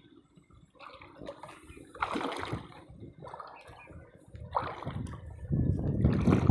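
Water splashing and sloshing in short irregular bursts, heaviest near the end.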